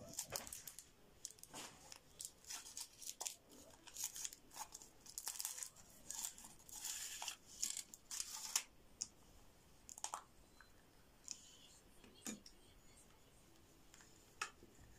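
Foil wrapper crinkling and tearing as it is peeled off a Chupa Chups chocolate ball. There is a quick run of rustles for the first nine seconds or so, then only a few scattered crackles.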